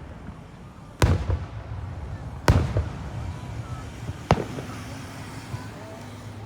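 Aerial fireworks bursting: three sharp booms about a second and a half apart, each followed by a rolling rumble that echoes off.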